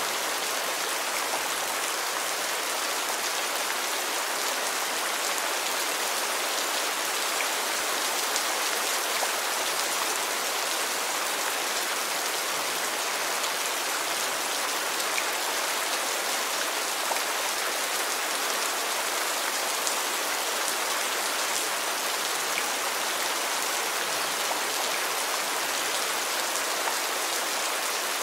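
Steady rain: an even hiss with faint, scattered drop ticks, unchanging throughout.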